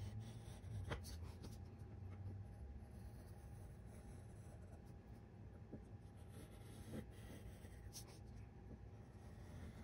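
A pen-like tool scraping faintly along the lines of a card-stock envelope template, with a few light taps.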